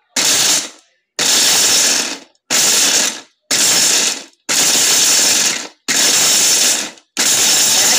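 Novena 1200-watt mixer grinder run on pulse, its blades smashing turmeric in a stainless steel grinding jar with a coarse rattle. There are seven bursts of about a second each with short gaps between them, the last held longer. This is the first stage of grinding, breaking up the turmeric before a continuous run.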